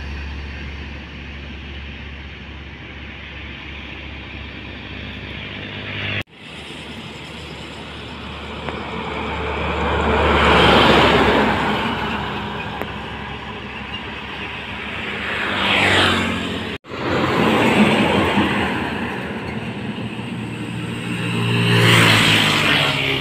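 Road traffic passing close: a heavy truck's engine rumbling as it pulls away, then a loaded LPG tanker truck and motor scooters going by, each pass swelling and fading with engine and tyre noise, one with a falling pitch as it passes. The sound breaks off abruptly twice.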